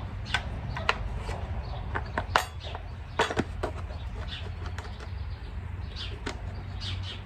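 A series of irregular sharp clicks and knocks, loudest about two and a half and three and a half seconds in, over a steady low hum.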